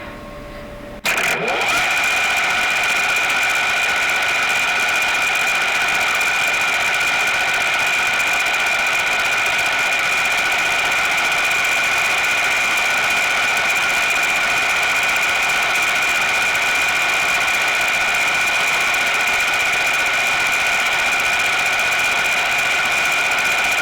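Metal lathe coming up to speed about a second in, then running steadily with a high-pitched whine.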